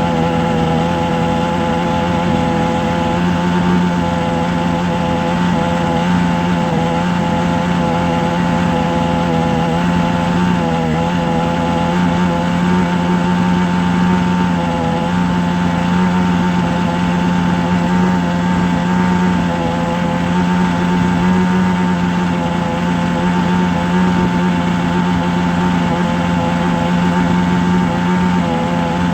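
A motor running at a steady speed, giving a constant hum with a strong low tone.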